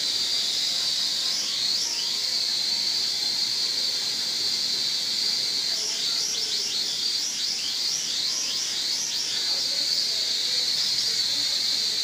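M22 toy quadcopter's motors and propellers whining steadily at a high pitch, the pitch wavering rapidly up and down for a few seconds in the middle as it flies.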